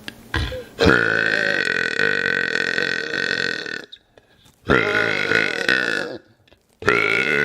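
A man burping three times in a row. The first burp is long and drawn out, about three seconds, with a steady pitch; two shorter ones follow, and the last is still going at the end.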